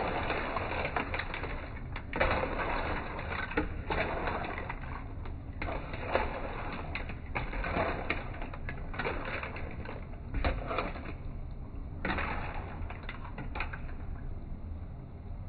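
Clams in their shells clattering and scraping against a wok as they are stirred with a plastic spatula, a dense run of small clicks in spells of a few seconds that eases off near the end.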